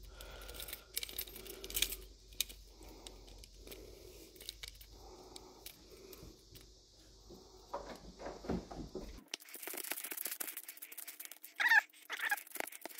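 Hands handling metal pipe fittings, a clear braided hose and steel hose clamps, making scattered light clicks, taps and rattles. A low hum drops out abruptly about nine seconds in.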